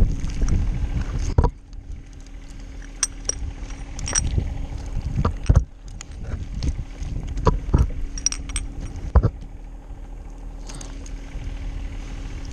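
Scattered metallic clinks and knocks of climbing and rigging hardware, some with a short high ring, over a low, uneven rumble.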